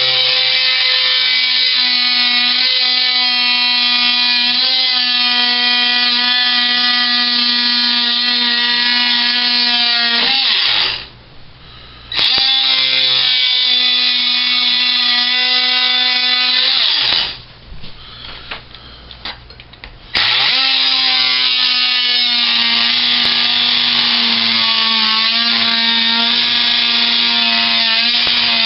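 Ryobi P340 18-volt oscillating multi-tool running with a steady buzz. It is switched off twice, about ten and seventeen seconds in, winding down in pitch each time, and is restarted a second or two later.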